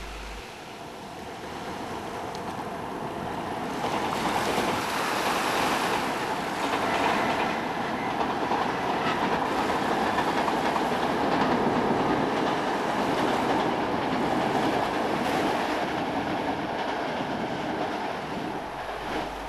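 Regional train hauled by an E464 electric locomotive running past on the track, its sound building from about four seconds in, loudest through the middle and easing off toward the end.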